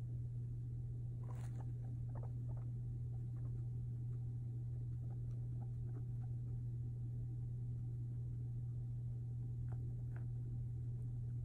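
Steady low hum, with faint short clicks and scuffs from a guinea pig moving about its wire pen: a cluster about a second in and two more near the end.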